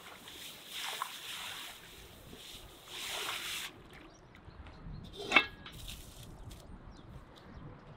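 Water hissing from a garden-hose spray nozzle into a metal pot as it is rinsed and scrubbed by hand; the spray stops about three and a half seconds in. A single sharp knock about five seconds in.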